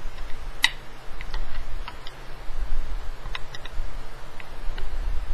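Light, irregular metallic clicks and ticks, about a dozen, from an Allen key turning screws in the XSPC bay reservoir's acrylic and metal housing, the sharpest about half a second in, over low handling rumble.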